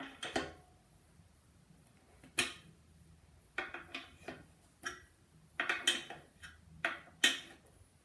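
Brass horn being handled for simple maintenance: irregular sharp metallic clicks, clinks and knocks, some with a short ring, spread over several seconds.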